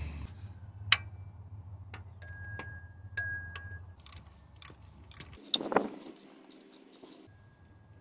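Scattered light metallic clicks and clinks of small hand tools, a 1/4-inch ratchet and sockets, being handled against engine parts. A few clinks ring briefly between about two and four seconds in, and there is a slightly louder knock a little before six seconds in.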